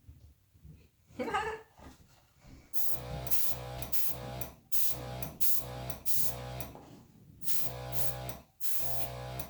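A small electric air compressor running in short bursts, with air hissing from the nozzle as it blows wet acrylic paint across a canvas. The bursts repeat about eight times, each about half a second long.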